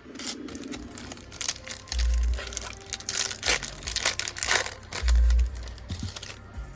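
Foil booster pack wrapper crinkling and tearing as it is opened by hand. Two dull low thumps come about two and five seconds in.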